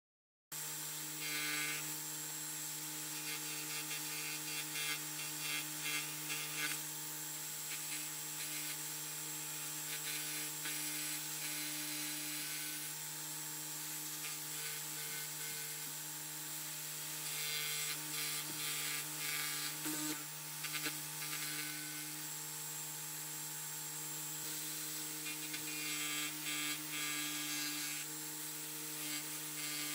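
Dremel Moto-Saw compact scroll saw running with a steady hum, its blade cutting through thin fibreboard, with stretches of rasping as the blade bites into the wood. The sound starts abruptly about half a second in.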